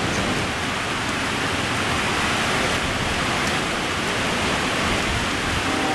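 Steady, even rushing hiss of heavy rain, with no rhythm or single events in it.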